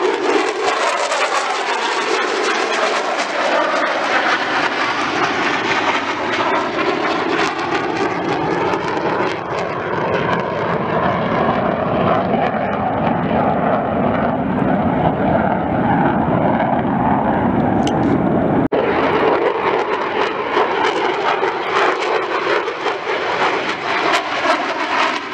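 Loud, continuous jet noise of an F-35A fighter's single Pratt & Whitney F135 turbofan as it flies past and away, with slowly sweeping tones running through the noise. The sound breaks off sharply about 19 seconds in and another F-35's jet noise carries on.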